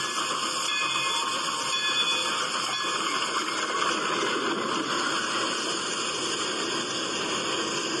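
Steam locomotives running past at speed, a steady rushing hiss with no clear beat, heard as video playback through computer speakers.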